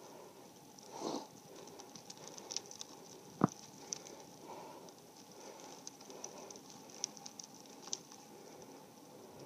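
Faint riding noise from a road bike on a climb: tyres on asphalt with small irregular clicks and rattles. There is a brief rush of noise about a second in and one sharp knock about three and a half seconds in.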